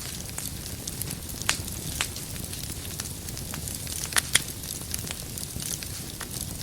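Wood fire burning in a fireplace: a steady low rumble and hiss with scattered sharp crackles and pops, two louder pops about four seconds in.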